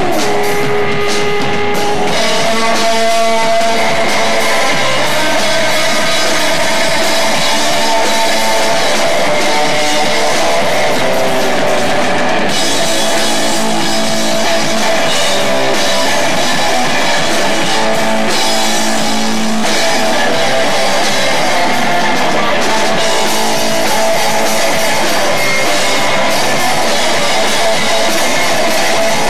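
Live rock band playing steadily loud, with electric guitar, bass guitar and a drum kit.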